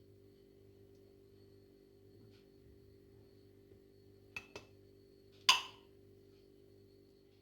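Two light clinks, then a sharper, louder clink with a short ring, of a utensil against a mixing bowl, over a faint steady hum.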